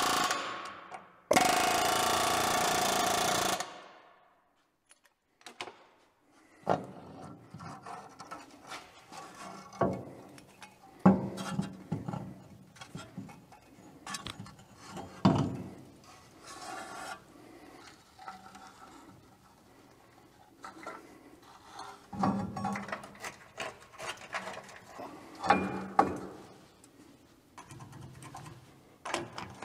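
A power tool runs in two short steady bursts at the start. Then come scattered metal clanks, knocks and scraping from hand work on parts.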